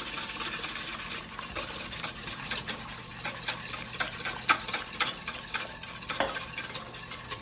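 Wire whisk beating eggs and warm milk in a mixing bowl: rapid, irregular clicks and scrapes of the tines against the bowl as the milk is tempered into the eggs.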